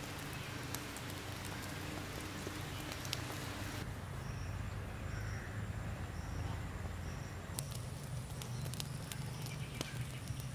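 Charcoal embers crackling under grilling skewers, with scattered sharp snaps over a steady low rumble. A faint high chirp repeats several times in the middle.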